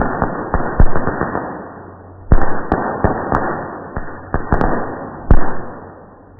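Fireworks going off in a dense string of about a dozen sharp bangs, each trailing off in a crackling rumble of up to a second. The sound is slowed down with the slow-motion footage, so the reports sound deep and drawn out.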